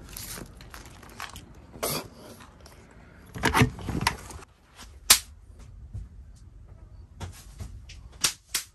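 Handling noises of someone climbing into a car-top pop-up tent: canvas rustling and scattered knocks against the shell and frame, with one sharp smack about five seconds in.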